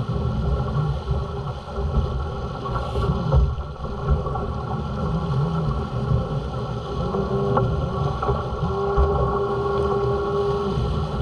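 Water rushing along the hull of a Pogo 8.50 racing sailboat under way, with wind buffeting the microphone. A steady hum runs underneath and grows louder in the second half.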